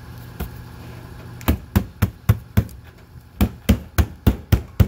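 Quick, sharp strikes on the motorhome's wooden sidewall paneling, in two runs of about four a second starting about a second and a half in, over a steady low hum.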